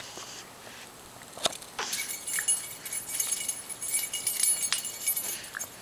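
A bunch of keys jangling, shaken repeatedly from about two seconds in, with one sharp click just before.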